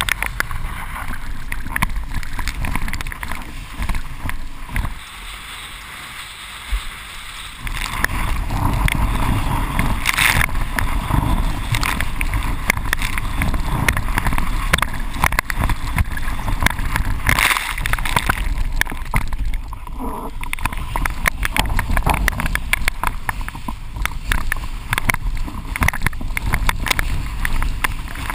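Wind and water rushing past a GoPro mounted on a windsurf rig as the board skims fast over choppy water and throws up spray. The rush dips for a few seconds, then picks up again about eight seconds in.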